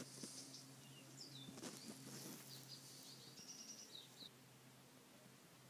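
Near silence: a faint steady low hum, with faint high bird chirps from about a second in until a little past the middle.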